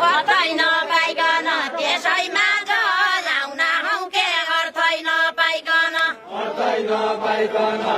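Women singing a deuda folk song verse in a high, wavering, ornamented melody; after about six seconds lower voices take up the line.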